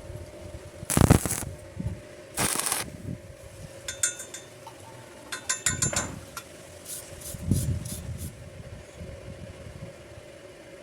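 Steel pieces being handled: two loud scraping clatters about a second in and two and a half seconds in, then several short runs of light metallic clinking and rattling, over a steady faint hum.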